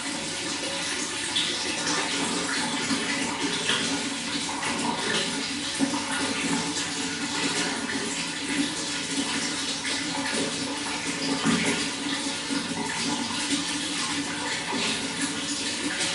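Running water flowing steadily: an even rush with small splashes and gurgles mixed in.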